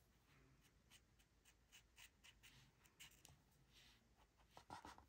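Near silence with faint, irregular strokes of rubbing and scratching on a paper colouring page.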